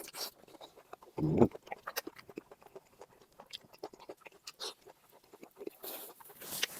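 Close-miked eating: chewing and wet mouth clicks and smacks while eating cooked pork, with a short loud low sound about a second and a half in and a crunchier stretch near the end.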